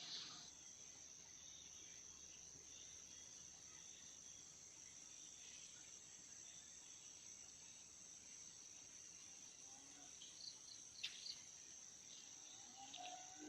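Faint, steady high-pitched chirring of insects in the riverside vegetation, with a couple of sharp clicks about eleven seconds in.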